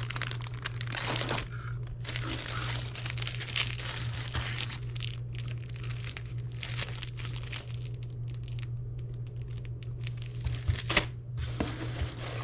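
Clear plastic packaging bags crinkling and rustling as they are handled, and near the end hands rummaging through shredded crinkle-paper packing fill in a cardboard box. A steady low hum runs underneath.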